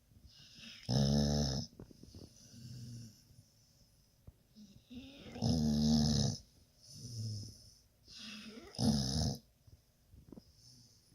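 Snoring in a slow, regular rhythm: three loud, buzzing snores about three and a half seconds apart, each followed by a softer, shorter breath sound.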